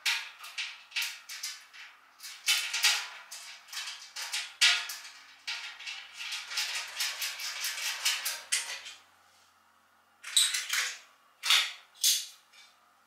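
Painted sheet-metal panels of a metal bandsaw stand clicking, rattling and scraping against each other as a side panel is pushed and worked into place, a quick irregular run of sharp clicks. After a short pause, three separate louder clacks follow.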